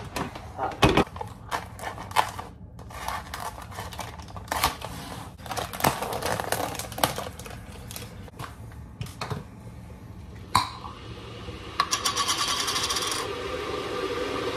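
Kitchen handling sounds of ingredients going into a slow cooker: repeated clicks, knocks and clatter of containers and packets, with rustling. About twelve seconds in, a steady rushing noise starts and holds for several seconds.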